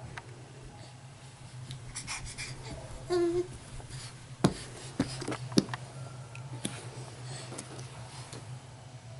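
A crawling baby gives a short vocal squeak about three seconds in, then a few sharp knocks follow around the middle, over a steady low hum.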